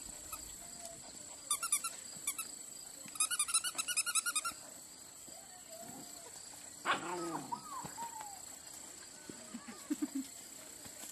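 German Shepherd puppy, about seven and a half weeks old, giving one loud yelp that falls in pitch a little before seven seconds in, then a few short low yips near the end. Two bursts of rapid high chirping come earlier.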